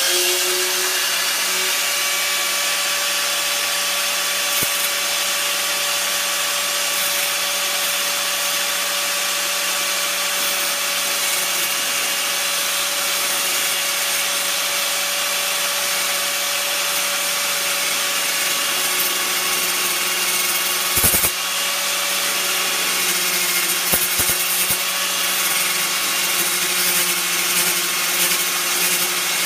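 Hyper Tough angle grinder running steadily, its disc grinding through the thick steel of a Stanley nail claw with a high whine and a hissing scrape. The motor tone drops briefly a little over two-thirds through, then picks back up.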